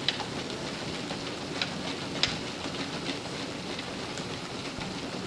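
Runner's feet striking the moving slat belt of a motorless curved treadmill, with the belt's steady clatter as its slats roll under the deck and a few sharper clicks, the loudest near the start and about two seconds in.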